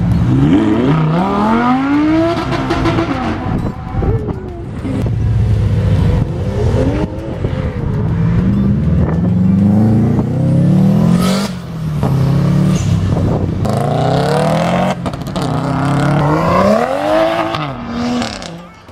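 Cars accelerating away one after another, their engines revving up through the gears: each note climbs, drops at a gear change and climbs again. The first to pull away is an Audi R8, whose engine rises steeply in pitch in the opening seconds.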